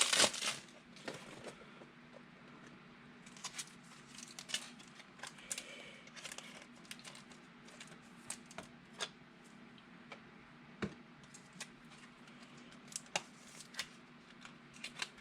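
Scattered light clicks and taps of trading cards and rigid plastic top loaders being handled on a tabletop, over a faint steady hum.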